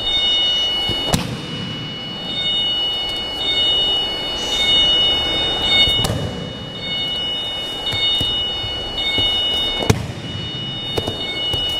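Aikido breakfalls: a thrown partner slapping and thudding onto the mat, three sharp impacts about a second in, midway, and near the end, over a steady room background with a faint high whine.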